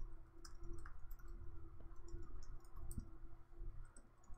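Computer keyboard typing: a run of quick, irregular keystroke clicks, with a faint steady hum underneath.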